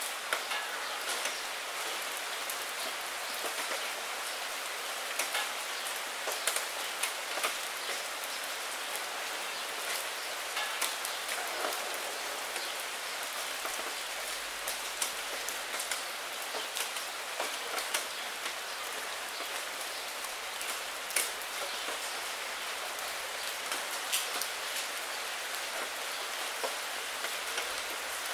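Steady rain falling on a puddle strewn with fallen maple leaves: an even hiss with many separate drops hitting sharply throughout.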